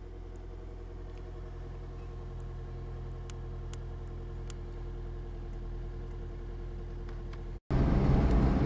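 Fiat car engine idling steadily, heard from inside the cabin, with a few faint clicks. Near the end it cuts abruptly to much louder engine and road noise of the car driving.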